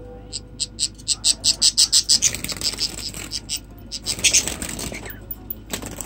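Budgerigars chirping in a quick run of short, sharp calls, about four a second, thinning out to scattered calls in the second half.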